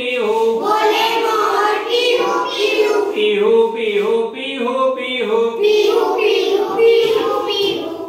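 A class of young children singing together in chorus, chanting a Hindi nursery rhyme about the calls of birds and animals.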